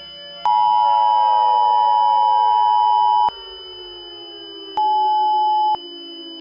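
Emergency Alert System-style two-tone attention signal sounding for about three seconds, then a shorter single tone of about a second, over a faint, slowly falling drone.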